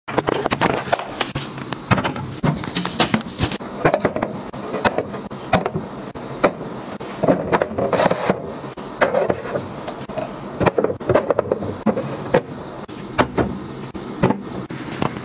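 Items being handled and set down on a cabinet top and into a clear plastic storage box: a string of light knocks, clicks and scrapes of plastic and a metal tin.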